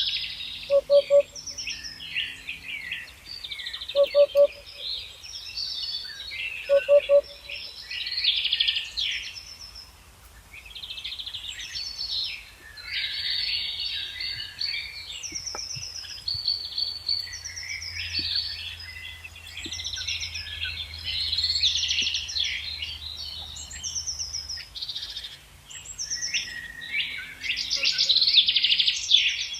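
Several songbirds singing at once, with overlapping high, quickly repeated phrases. A lower-pitched call sounds in three short bursts in the first seven seconds.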